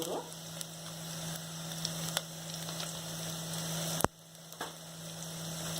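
Tempering of onion, curry leaves, mustard seeds and cumin sizzling in hot oil in a pan, the onion browning. A steady low hum runs underneath, and there is a sharp click about four seconds in.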